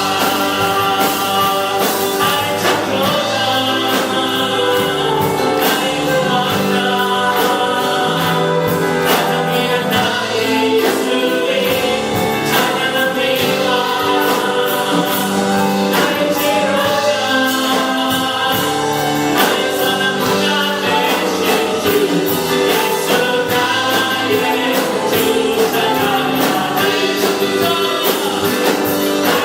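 Group of voices singing a gospel praise song with a band accompaniment and a steady beat.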